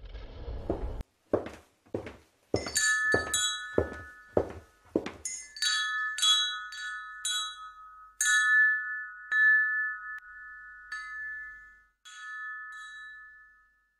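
Bell-like chime tones struck again and again on a small cluster of high notes, each ringing on after the strike. Under the first five seconds runs a series of about ten short, evenly spaced sweeping hits.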